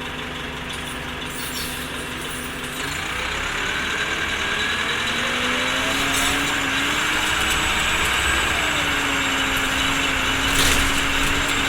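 Orion V transit bus's diesel engine idling, then pulling away about three seconds in: the engine and drivetrain tones rise in pitch, dip once as if through a gear change, and settle to a steady note about eight seconds in. A brief sharp hiss-like noise comes near the end.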